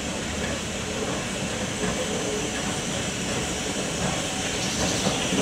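LMS Ivatt Class 2 2-6-2T steam tank locomotive No. 41241 moving slowly with its train of carriages: a steady rumble of the locomotive and wheels, growing slightly louder as it comes closer.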